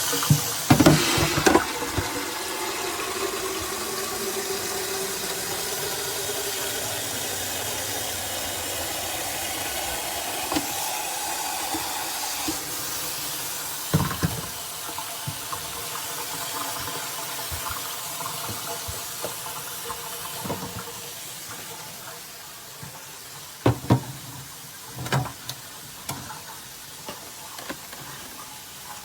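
Keurig K-Slim single-serve coffee maker brewing: a steady stream of hot water pouring into a mug, its pitch rising as the cup fills, then the flow tapering off. A few sharp clicks or knocks come after the pour.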